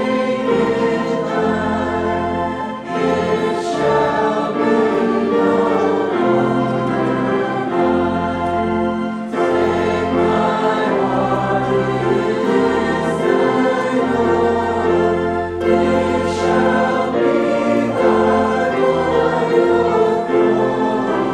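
A congregation singing a hymn together, with instrumental accompaniment holding long bass notes beneath the voices.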